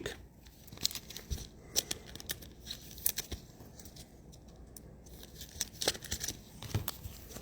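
Trading cards and their packaging being handled: light, scattered clicks and rustles at an uneven pace.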